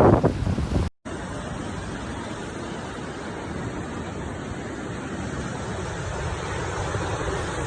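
Hurricane wind buffeting the microphone, cut off abruptly about a second in. A steady, even rushing noise of the storm follows and grows slightly louder.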